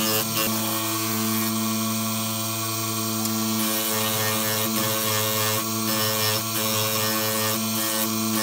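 Motor-driven abrasive grinding disc running with a steady whine while a steel blade is pressed against it, grinding with a harsh rasp and throwing sparks.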